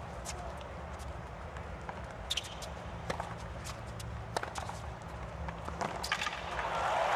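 Tennis rally on a hard court: sharp racket strikes and ball bounces every second or so over a low crowd murmur. Near the end, crowd applause and cheering swells up.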